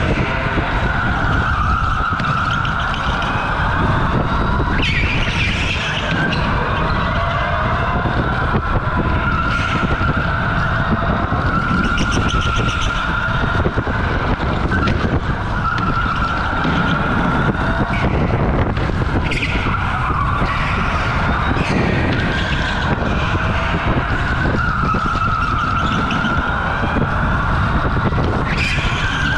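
OTL Storm electric go-kart at racing speed, heard from on board: the motor's whine rises and falls with speed over a steady rumble. The tyres squeal briefly in corners several times.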